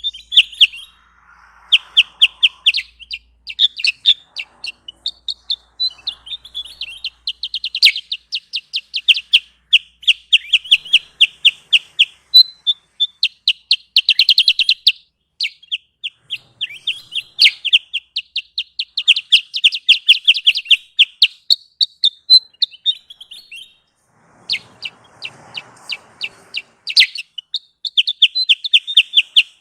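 Kutilang sutra bird calling: fast trains of sharp, high chirps, about five a second, in runs of a few seconds with short breaks, the kind of call used as a lure (pikat) sound to draw in wild birds.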